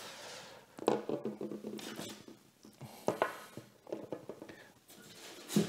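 Resin and PVC statue parts being handled and set down on a tabletop: a few light knocks with soft handling rustle between them.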